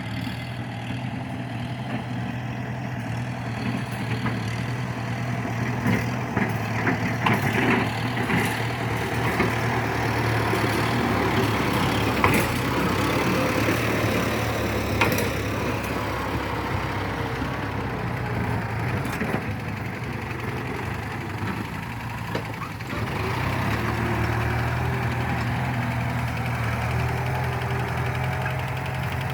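Kubota farm tractor's diesel engine running steadily under ploughing load, with scattered clanks and knocks between about 6 and 19 seconds in. The engine note dips briefly about 23 seconds in, then holds steady again.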